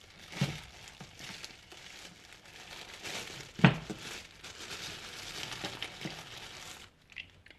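Crinkling of packaging, such as a plastic bag, being handled for several seconds, with one sharp knock partway through.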